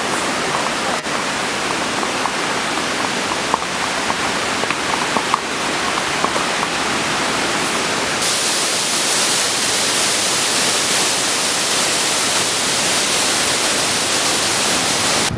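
Steady, loud rushing noise with no pitch or rhythm, spread evenly through the middle and high range and thin in the bass. It starts and stops abruptly and turns brighter and hissier about eight seconds in.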